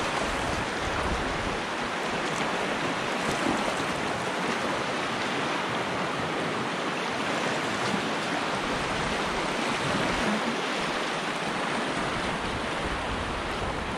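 Whitewater of river rapids rushing steadily around an inflatable packraft.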